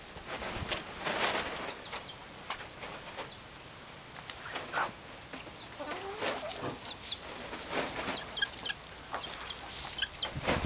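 Chickens clucking, with many short, high chirps that drop in pitch scattered through.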